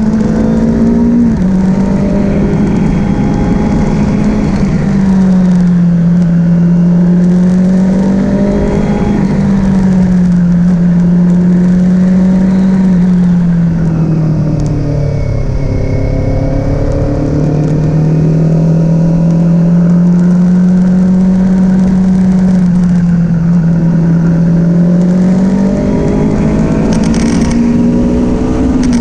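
Kawasaki Z400 parallel-twin motorcycle engine running steadily under way. Its note slowly drops and rises several times with the throttle, over a constant rushing noise.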